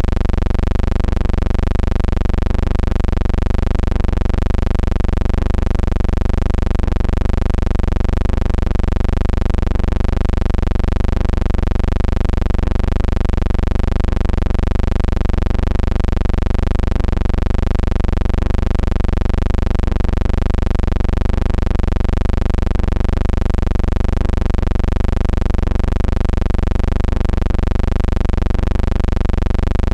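Steady, loud low hum with a row of overtones that waver slowly, pulsing faintly about once a second and never changing.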